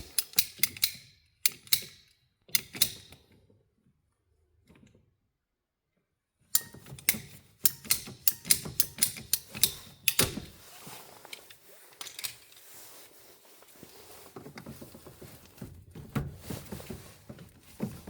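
Hand snips cutting, a run of sharp clicking snips with a pause of a few seconds near the middle, then quieter handling and scraping noise toward the end.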